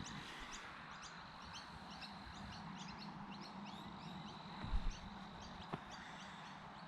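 Faint chorus of small birds chirping in quick, repeated short calls, over a steady low hum. There are a couple of soft thumps about two-thirds of the way through.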